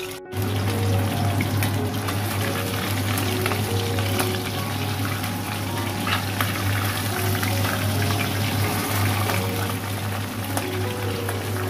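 Mackerel fillets shallow-frying in hot oil in a wok, a steady sizzle full of small crackling pops, over a steady low hum. It starts abruptly after a split-second gap.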